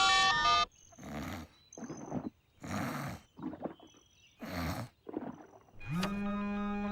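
Cartoon sound effect of a creature growling: a run of about six short, rough growls roughly a second apart, then a held pitched note near the end.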